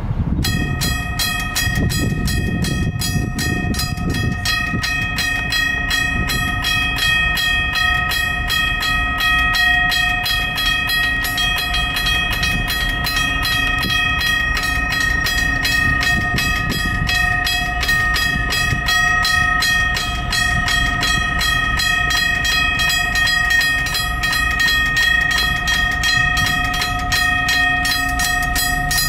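Two Union Switch & Signal teardrop crossing bells start ringing about half a second in, with rapid repeated hammer strikes on the gongs and a steady ring: the grade crossing has activated for an approaching train.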